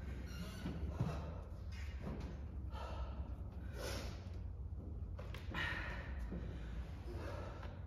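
A woman breathing hard in a string of heavy breaths, about one a second, out of breath after a stair-climber cardio session.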